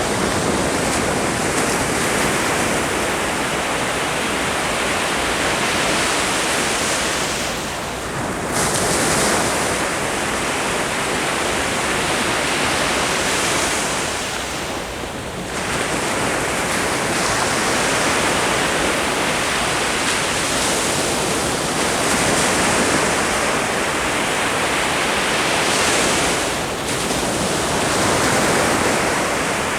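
Ocean surf breaking on the shore: a continuous wash of waves that swells and eases, with short lulls about every seven seconds between breakers.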